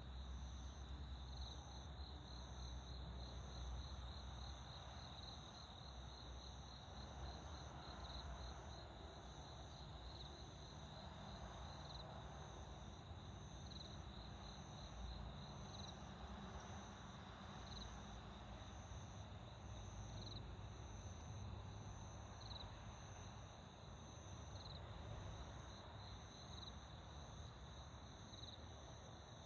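Field insects singing: a high, evenly repeated chirp and a lower, rapidly pulsing trill keep going steadily, with a faint low rumble underneath.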